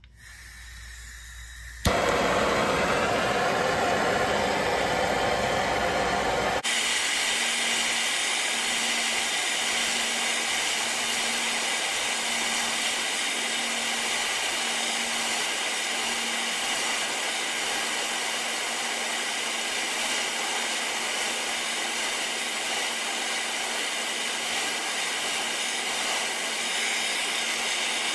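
Handheld gas torch flame hissing steadily as it heats a seized wheel bearing on the spindle to free it. The flame comes on suddenly about two seconds in with a rough, lower rush, and about seven seconds in settles to an even, high hiss.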